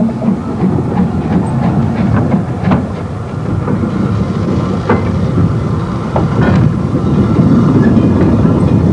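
Stanier Class 8F 2-8-0 steam locomotive moving slowly: a low rumble with scattered clanks and clicks, a little louder in the last couple of seconds.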